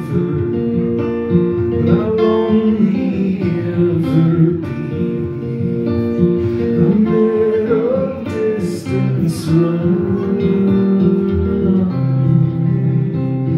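Acoustic guitar strummed live, with a man singing over it.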